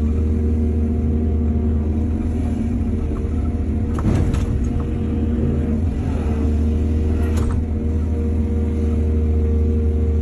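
Excavator's diesel engine running steadily, with two short noisy bursts of clatter about four and seven seconds in as the machine works soil.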